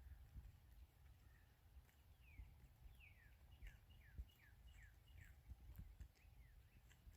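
Faint bird song: a quick series of about a dozen short down-slurred whistled notes over a low rumble of wind.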